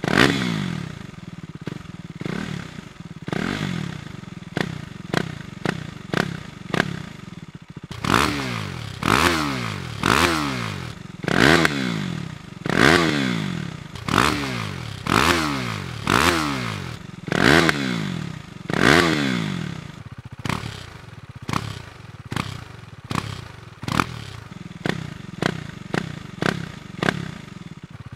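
Husqvarna Svartpilen 401's single-cylinder engine revved repeatedly while standing, each throttle blip rising sharply in pitch and falling back toward idle. A run of about ten fuller revs, evenly spaced, sits in the middle, with shorter, quicker blips before and after.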